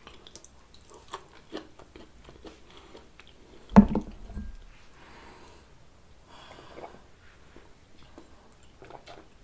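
Close-miked mouth sounds of people drinking soda: small wet clicks and sips, with one louder thump a little under four seconds in.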